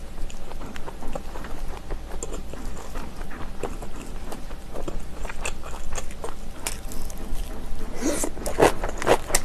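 Close-miked chewing and crunching of kimchi, a run of short wet crunches, growing denser and louder near the end.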